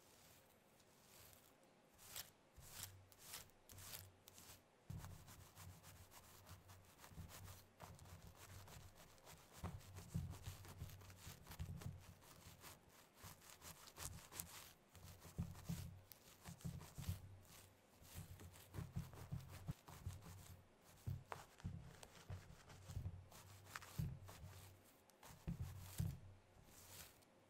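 Very long acrylic nails scratching and raking through hair on a scalp, quick irregular rubbing strokes with soft low thuds of the fingertips on the head. The strokes are sparse for the first few seconds, then come thick and fast.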